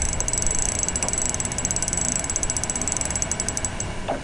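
Fishing reel clicking rapidly and evenly while a large fish pulls on the line; the clicking stops shortly before the end.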